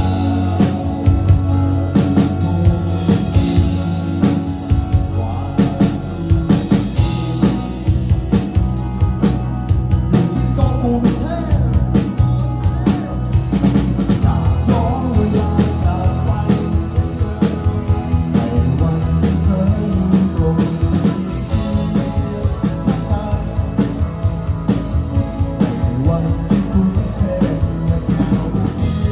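Live rock band playing: two electric guitars, an electric bass and a drum kit keeping a steady beat.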